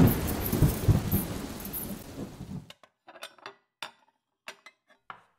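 A thunder rumble with rain dying away, then cut off abruptly about two and a half seconds in. It is followed by a quiet stretch with about ten light, irregular clinks of small hard objects being handled.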